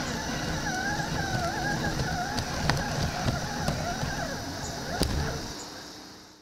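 Radio-controlled rock crawler's electric motor and gears whining, the pitch wavering up and down with the throttle, over a rough clatter and rumble of tyres on rocks with a few sharp clicks. The sound fades out near the end.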